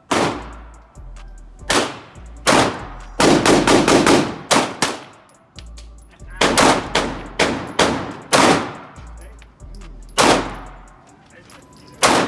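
Gunshots on a firing range: single shots about every half second to second, with a rapid string of about six shots around three seconds in. Each shot is sharp and followed by a short echo.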